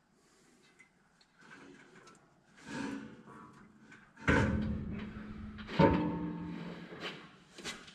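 Steel parts of a grain drill's fill auger mount clanking and knocking as they are lifted and shifted. The two loudest clanks, about four and six seconds in, each leave a ringing hum of resonating metal.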